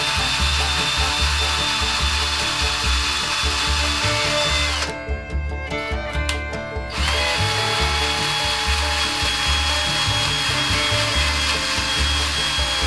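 Power drill motor running with a steady whine as it drives a thread tap into a metal block through cutting oil. It winds down and stops about five seconds in, then starts up again about two seconds later. Background music with a steady beat runs underneath.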